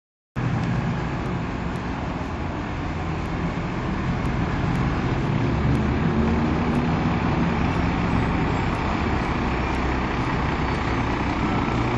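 Dennis Dart single-deck bus's diesel engine running steadily at idle. The sound cuts in suddenly about half a second in.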